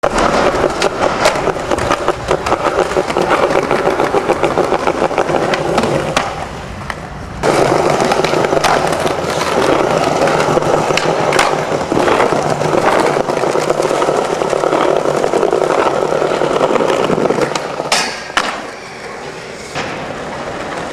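Skateboard wheels rolling over pavement and tiles, with sharp clacks from the board every so often. The rolling dips briefly about a third of the way in and turns quieter near the end.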